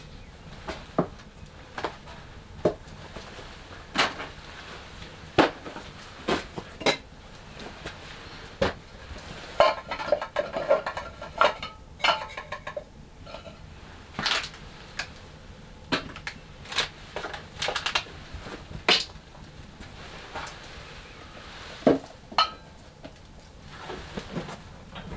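Bottles, jars and small containers set down one by one on a rough wooden shelf: a string of separate knocks and clinks, with a busier run of glass clinking around the middle.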